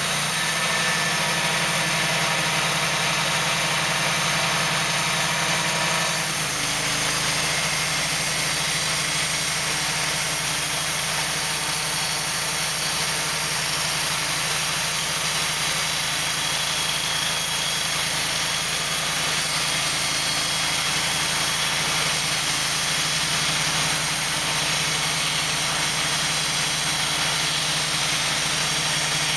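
Wood-Mizer portable band sawmill running steadily under engine power; the engine's note changes about six seconds in.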